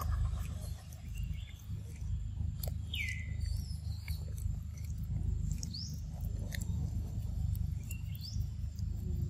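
A long-tailed macaque chewing and biting into ripe mango, with short wet clicks from its mouth, over a steady low rumble. Birds give a few short chirps that slide in pitch, the clearest a falling whistle about three seconds in.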